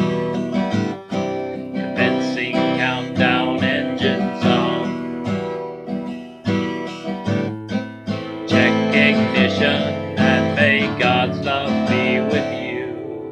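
Acoustic guitar strummed in a steady, repeated chord rhythm. The sound fades away near the end.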